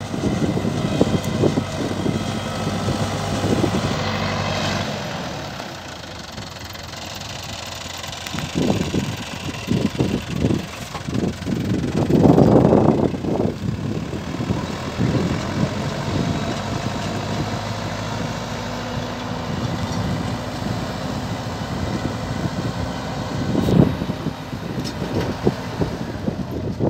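Farm tractor engine running steadily while it pulls a disc plough through dry, clodded soil, with irregular knocks and scraping from the discs. The loudest burst comes about halfway through.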